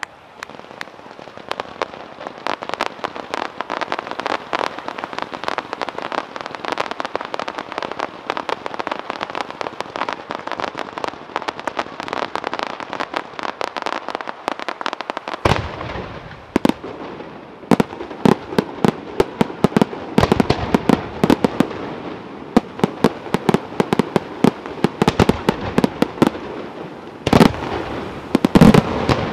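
Scarsella Fireworks display. For about fifteen seconds there is dense, continuous crackling from red low-level effects. Then comes a run of louder, deeper bangs from shells bursting overhead, with crackle between them and a heavy cluster of bangs near the end.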